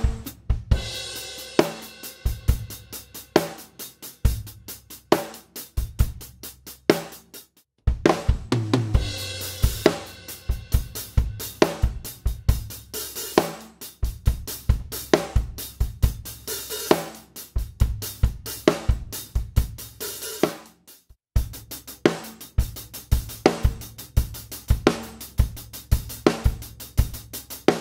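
Drum kit grooves led by closed hi-hat strokes over bass drum and snare. The hi-hat is played both evenly and with accented-and-soft dynamic variation. The playing stops briefly twice, about 8 and 21 seconds in, and starts again with the next example.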